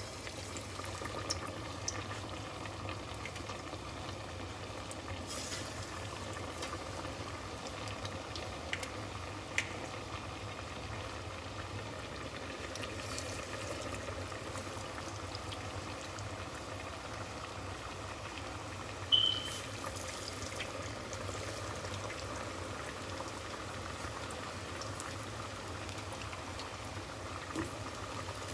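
Hot frying oil bubbling steadily in a deep fryer, with a few light clicks and one brief sharp clink about two-thirds of the way through.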